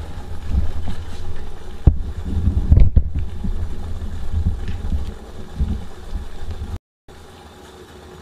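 Water at a rolling boil in a metal mug over a Trangia methylated-spirit burner, a steady low rumbling bubble with a few knocks about two to three seconds in. The sound cuts out briefly about seven seconds in and comes back much quieter.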